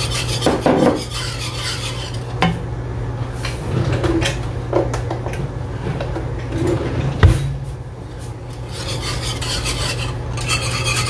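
Wire whisk scraping round a cast iron skillet of thickening gravy in quick, rhythmic strokes, which stop for several seconds in the middle and start again near the end. A few clicks and one sharp knock about seven seconds in, over a steady low hum.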